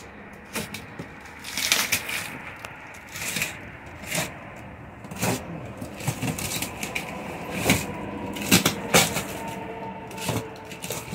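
Box cutter slicing through packing tape and cardboard, with cardboard flaps tearing and being pulled open: a run of irregular crackles, scrapes and rips, the loudest a little past the middle.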